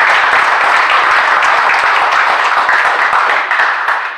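Crowd applauding with steady clapping that dies away near the end.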